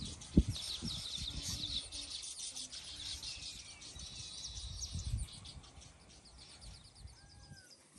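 Small birds chirping quickly and high, thinning out after about five seconds, with a single sharp click about half a second in and some low bumps.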